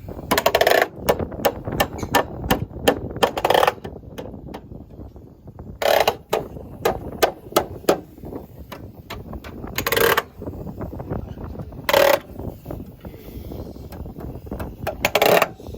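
Nails being driven into metal purlin hangers: a run of sharp single strikes, broken by about six short bursts of rapid blows, near the start, around 3.5, 6, 10 and 12 seconds in, and near the end.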